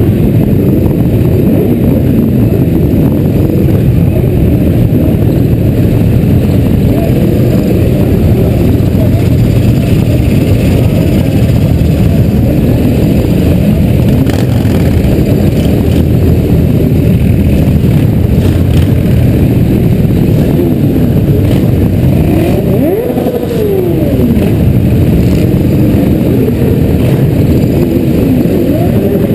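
Motorcycle engines running at low parade speed, the rider's own Yamaha XJ among a column of bikes, with a heavy low rumble on the helmet camera's microphone. In the last third, engines rev up and down a few times in short rising and falling sweeps.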